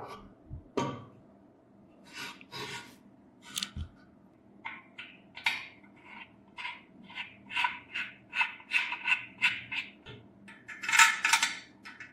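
Hand tool scraping or brushing metal in short strokes. The strokes come at about two a second, with a louder, denser run near the end.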